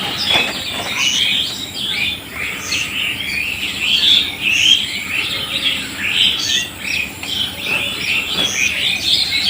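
Many small birds chirping and trilling at once in a dense, continuous chorus, with a short higher note recurring every second or two.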